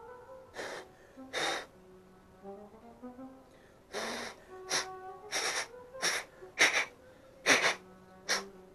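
About nine short puffs of breath blown onto a spinning fishing reel, each brief and hissy, coming at uneven gaps of roughly half a second to a second and a half. Background music with brass-like tones plays underneath.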